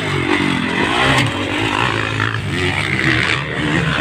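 Motocross dirt bike engines revving and easing off, the pitch rising and falling again and again as the bikes take the jumps.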